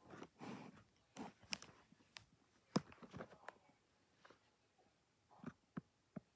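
A domestic cat grooming itself: faint, irregular licking and nibbling clicks at its fur, with soft rustling.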